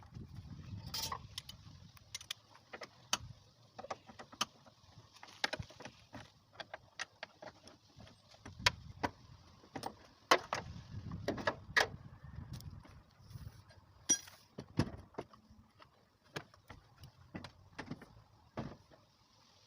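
Irregular metallic clicks, clinks and knocks of tools and hardware being handled during a car door hinge installation, the loudest a little past halfway.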